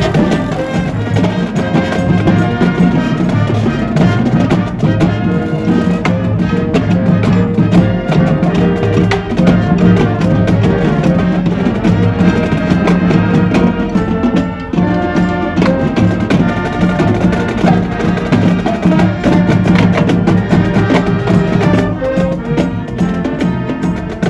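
Music with drums and percussion keeping a steady beat under a pitched melody.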